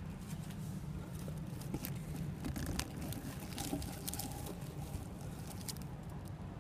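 Plant leaves and stems brushing and crackling against a handheld phone's microphone, a scatter of small irregular clicks over a steady low rumble.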